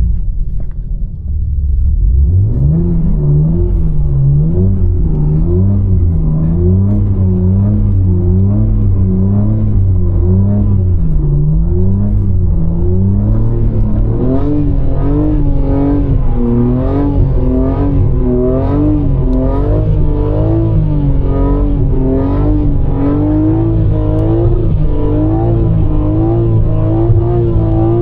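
Car engine revving up and down in quick, repeated waves, with the pitch stepping up to a higher range about halfway through and carrying on in waves to the end.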